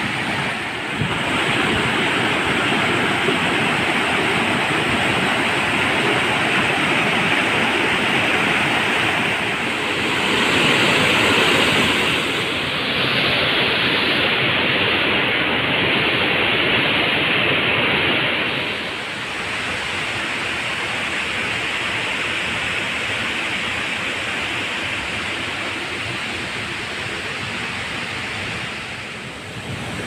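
Waterfall and rapids rushing over rocks: a loud, steady hiss of falling and tumbling water. It changes in tone a little under halfway through and drops slightly in level about two-thirds of the way in.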